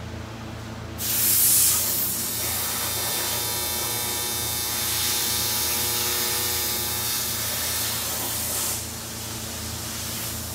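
A steady hiss of something spraying under pressure starts suddenly about a second in and stops after about eight seconds, over a continuous low hum.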